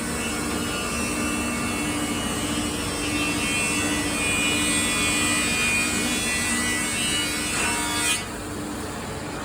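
Power saw running through timber with a steady whine and hiss, stopping sharply about eight seconds in.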